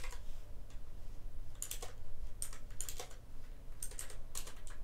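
Computer keyboard keystrokes, a few irregular clusters of key presses while code is being edited, over a faint steady low hum.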